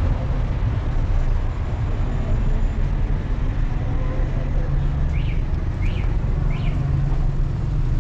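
Steady low rumble of a motor vehicle running on the road, with three short high chirps in quick succession about five to seven seconds in.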